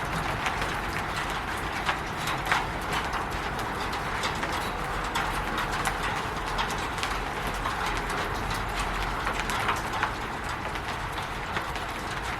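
Rain falling on a roof: a steady patter with irregular sharper drops and drips ticking among it.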